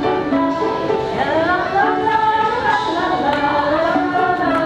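Piano playing a tune while several voices sing along.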